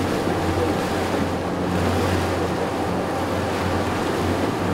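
A motorboat's engine running with a steady low drone, under rushing water and wind buffeting the microphone.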